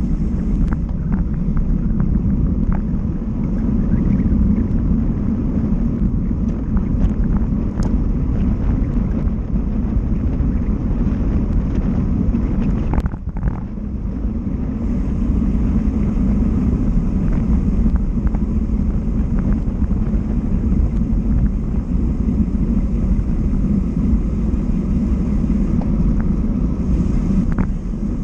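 Steady low rumble of wind buffeting the microphone and tyre noise from a road bike being ridden along a paved road, with faint scattered small clicks. It dips briefly about halfway through.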